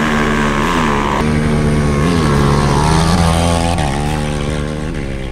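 Sport ATV engines revving hard under full throttle in a dirt drag race, the engine note rising and falling back several times.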